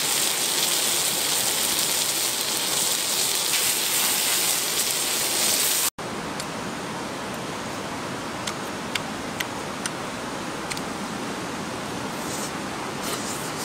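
Chicken heads sizzling on a hot stone over a wood fire: a loud, steady hiss. After a sudden break about six seconds in, a quieter steady hiss with a few sharp clicks, then short crackly bursts near the end as a roasted chicken head is chewed.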